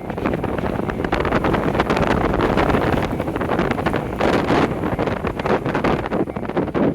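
A train passing close by: a loud, rushing noise with rapid clattering, and wind buffeting the microphone.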